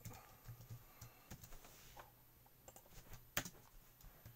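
Faint typing on a computer keyboard: scattered key presses, with one louder click about three and a half seconds in.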